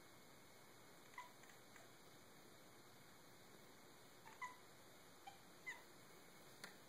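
A cat giving short, faint barking chirps, about five of them a second or so apart, at a sunlight reflection it is playing with. There is a sharp click near the end.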